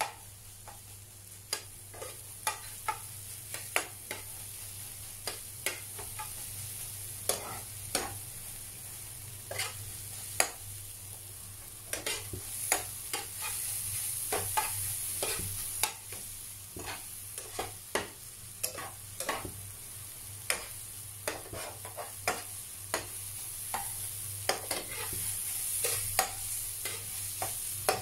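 Egg bhurji (scrambled eggs) sizzling in a frying pan while a spatula stirs and scrapes through it, with many irregular clicks and taps of the spatula against the pan. The sizzle swells a little around halfway and again near the end.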